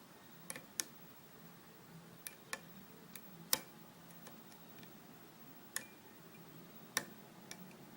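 Small, sharp metallic clicks at irregular intervals, about eight in all, from a lock pick and tension wrench working the serrated pins of a U-Haul disc padlock, as tension is eased to free an overset pin and picking resumes.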